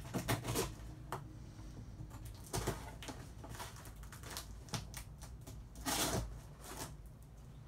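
Packing tape on a cardboard shipping box being cut and pulled open by hand: a series of short rips and scrapes with scattered clicks, the loudest about six seconds in.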